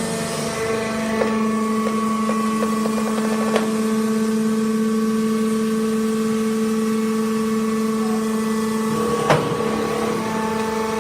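Hydraulic sawdust baling press running, its power unit giving a steady whine at one pitch. Sharp metallic knocks come about a second in, a few seconds later, and a louder one near the end.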